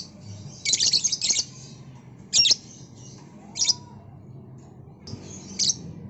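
Lovebird calling with loud, high-pitched chirps and squawks: a quick burst of several calls about a second in, then single calls every second or so.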